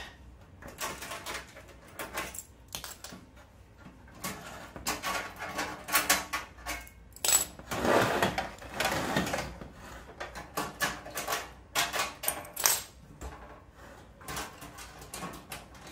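Metal latch clips on a diesel air heater's case clicking and clinking as they are worked by hand, with knocks and clatter as the heater is tilted and shifted, busiest through the middle.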